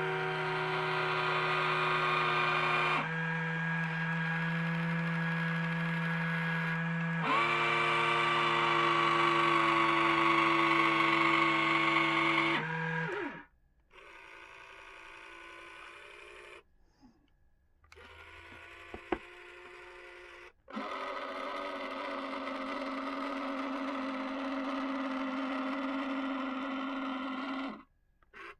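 Omnibot 2000's motorised tray mechanism, its small electric motor and gears running with a steady whine in several runs that stop and start abruptly. It is louder for the first dozen seconds and quieter in the later runs, working smoothly after cleaning, lubrication and a replaced gear.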